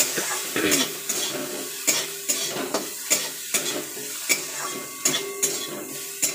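Metal spatula scraping and knocking against a metal kadai about twice a second while stirring sliced bitter gourd, with a steady sizzle of the gourd frying in very little oil.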